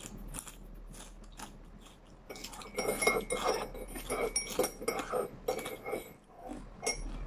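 Close-up crunchy chewing of a fried noodle snack: a quick, irregular run of crisp crunches that starts about two seconds in and goes on for several seconds.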